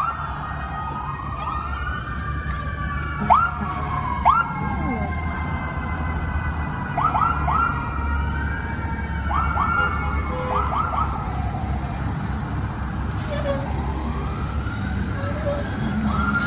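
Several emergency-vehicle sirens sounding at once, slow rising-and-falling wails overlapping one another, with short sharp upward whoops scattered through. A steady low rumble runs underneath.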